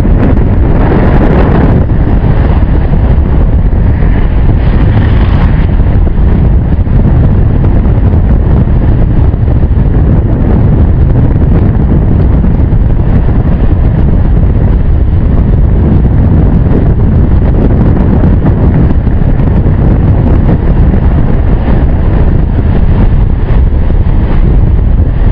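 Loud, steady wind buffeting a camera microphone: the rush of air past a BASE jumper's camera during the descent. A little brighter in the first few seconds.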